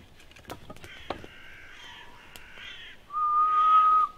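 Crows cawing several times in a row. Near the end, a loud whistle on one steady note lasts about a second, with a few light knocks earlier.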